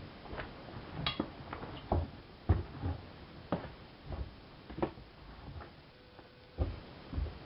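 Miele Softtronic W3657 front-loading washing machine drum turning during the wash, the laundry tumbling with irregular thuds and sharp clicks.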